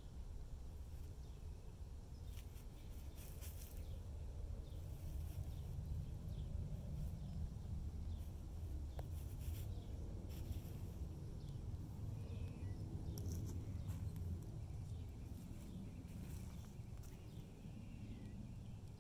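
Dry grass of an empty bird's nest and bark mulch rustling and crackling in short, irregular bursts as a cat paws, bites and rolls on it. Under it runs a faint, low, steady rumble.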